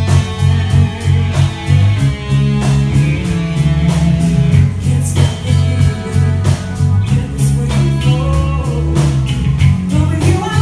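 Live rock band playing: electric guitars, keyboard and a drum kit keeping a steady beat, with a woman singing over it.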